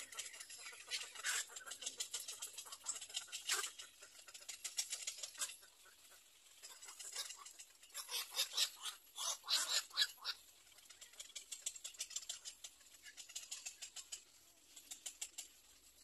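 Little egret chicks giving rapid, clicking chatter calls in repeated bouts, the loudest about halfway through.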